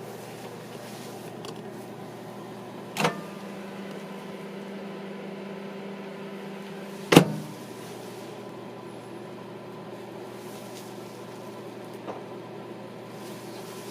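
Faulty microwave oven running with a steady hum. A sharp click about three seconds in brings a louder, deeper hum, which a loud clunk cuts back about four seconds later. The oven has a fault in which it keeps operating even with the door open.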